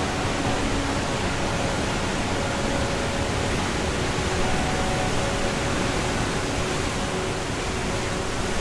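Banias Waterfall pouring into its pool: a steady, dense rush of falling water.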